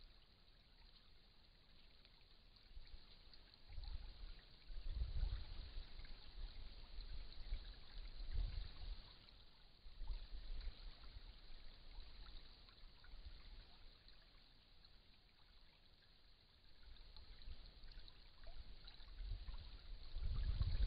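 Faint steady hiss from a trail camera's microphone, with irregular low rumbles that swell about four seconds in, come back a few times, and build near the end.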